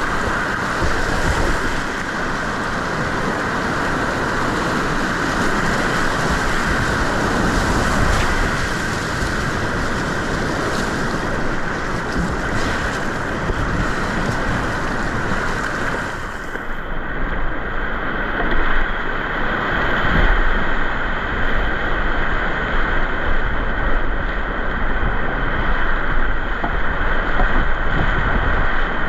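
Whitewater rapids rushing and splashing steadily around a kayak. About halfway through, the sound turns duller, with a deeper rumble.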